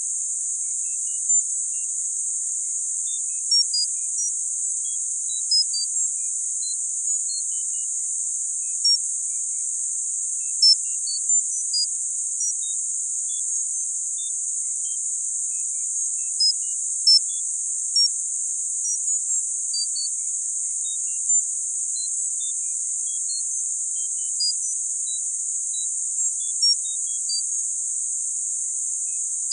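Tinnitus-masking sound: a steady, high, narrow-band hiss. Brief high tones at random pitches sound over it, about two a second, like scattered plinks.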